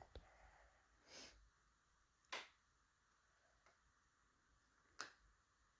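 Near silence broken by a few faint, brief clicks and taps, five or so spread over the stretch, from handling the freshly picked-open lock and picking tools.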